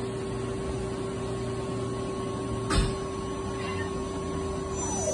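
Smart NL 2000M CNC lathe with live tooling running, its drives giving a steady whine at two pitches over a mechanical hum, with one short click nearly three seconds in. Near the end the higher whine falls in pitch as a drive winds down.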